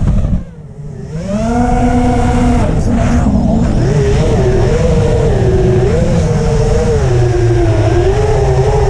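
FPV quadcopter's brushless motors and propellers whining. The sound drops off for about a second near the start as the throttle is cut in a dive, then climbs back and keeps rising and falling in pitch as the throttle changes.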